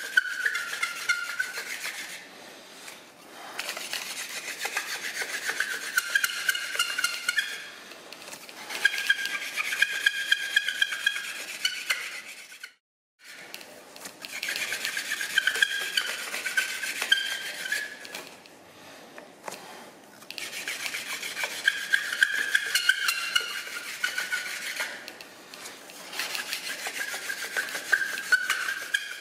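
Hand-drill friction fire-making: a wooden spindle spun back and forth between the palms, grinding into a wooden hearth board with a rapid rasping, squeaky rubbing. It comes in runs of a few seconds, broken by short pauses.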